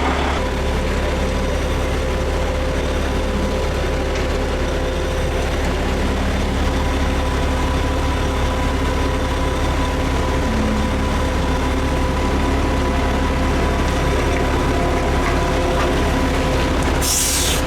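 Cement mixer truck's diesel engine running steadily with a deep rumble and a steady whine above it. A short burst of hiss comes near the end.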